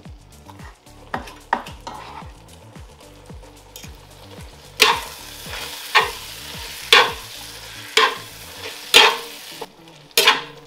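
A slotted metal spatula stirring shredded chicken into a thick, creamy cheese mixture in a cast-iron skillet over heat: about one scraping stroke a second over a low sizzle, starting about halfway through. Before that come light clicks of forks pulling chicken apart on a wooden cutting board.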